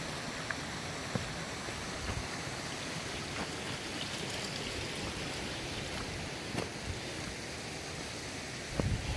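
Steady outdoor rushing noise, with wind buffeting the microphone in a low uneven rumble. There are a few faint taps and a louder bump near the end.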